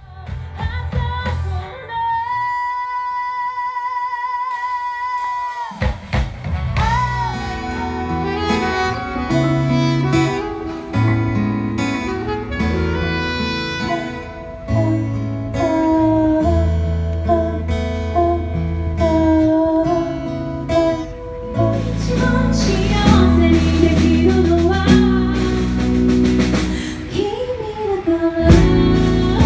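Band music with singing, guitar, bass and drums. It opens with a single long note held with vibrato, and the full band comes in about six seconds in.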